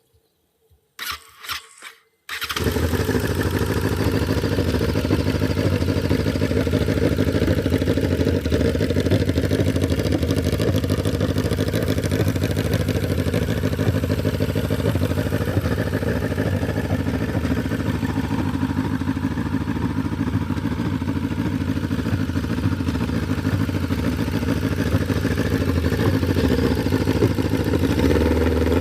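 Modified Honda Sonic RS's 1000 cc four-cylinder engine being started: a few short stuttering bursts about a second in as it is cranked, then it catches just after two seconds and runs steadily.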